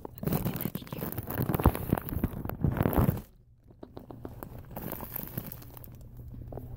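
Plastic wrapping on multi-packs of paper rolls crinkling and rustling as the packs are shifted and handled right against the microphone, stopping abruptly about three seconds in, then lighter scattered handling noises.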